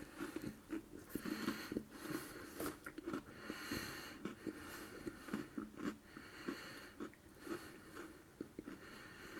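Biting into and chewing an Oreo chocolate sandwich cookie: irregular crunches and mouth sounds.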